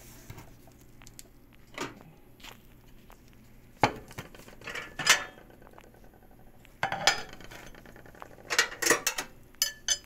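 Scattered clinks and knocks of kitchenware being handled, with the clunk of a microwave door being opened; the sharpest knocks come about four and five seconds in and in a cluster near the end.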